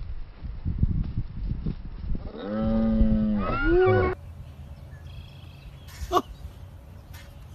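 Gusty wind rumbling on the microphone, then a long drawn-out voice held on one low pitch that falls at its end, followed by a short rising cry. After a sudden cut it turns quieter, with a single knock about six seconds in.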